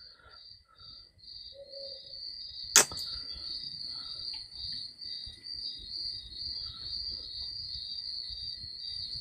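Cricket chirping steadily in a rapid pulsing rhythm, about three pulses a second, with a single sharp click nearly three seconds in.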